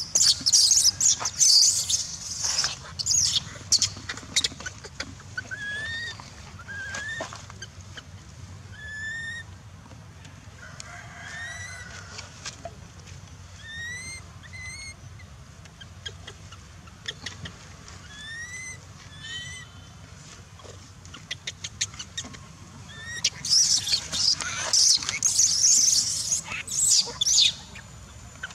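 A baby long-tailed macaque screaming in shrill, ragged bursts, at the start and again near the end. In between, a bird repeats a short rising chirp every second or so.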